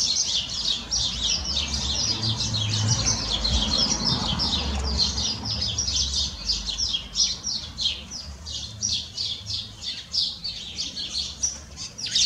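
Small birds chirping, a dense, unbroken run of short high chirps, with a faint low rumble under the first half.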